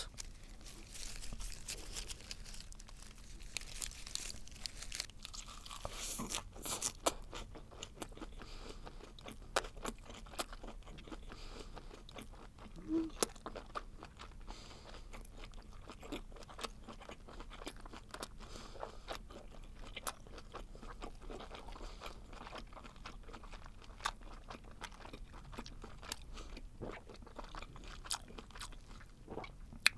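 Close-miked eating of a spicy stir-fried webfoot octopus wrapped in a red-leaf lettuce leaf: crisp crunching of the lettuce and wet chewing of the octopus, many small crunches in a row, loudest about six to seven seconds in.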